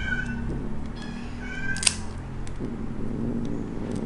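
Tabby cat giving two short, high meows about a second and a half apart while its claws are trimmed, with a sharp snip of the pet nail clippers right at the end of the second meow.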